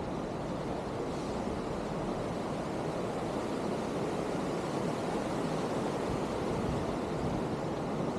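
Wind buffeting the microphone: a steady low rushing noise that grows slightly louder.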